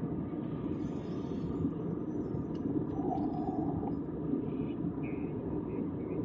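Steady cabin noise inside an Airbus A320-family jet airliner at cruise: a continuous low rumble of engines and airflow, even throughout.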